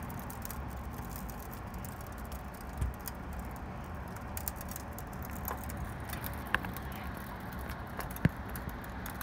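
Freezing rain and tiny ice pellets pattering and ticking on a window and sill over a steady hiss of falling rain, with a few sharper clicks.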